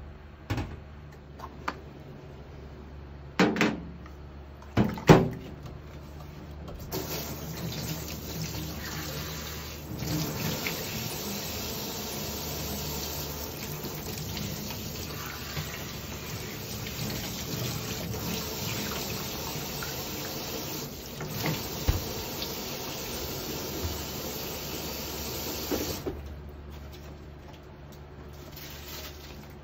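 A few sharp knocks in the first five seconds, then a kitchen tap running into a stainless steel sink with water splashing on the steel, steady from about seven seconds in and shut off near the end.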